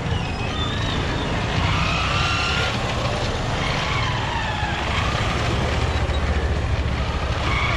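Street traffic: a steady rumble of motor vehicles, with scattered short higher tones over it.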